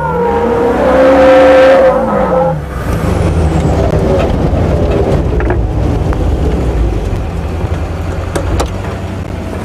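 Humvee's Duramax turbo-diesel V8 driving hard; the engine note rises and falls over the first couple of seconds, then settles into a steady low rumble.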